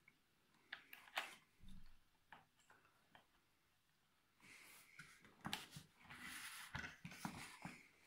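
Hands handling a plastic ultrasonic humidifier: faint scattered clicks and taps, then from about halfway a few seconds of rubbing and rustling against the casing with several sharper clicks.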